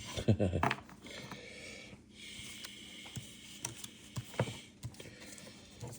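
A brief word of speech, then faint rustling and a few soft clicks from trading cards being handled.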